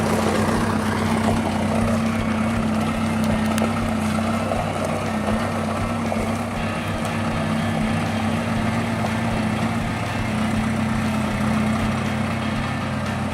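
Engine of the heavy equipment moving the boulders running steadily at idle, a constant low hum with no change in speed.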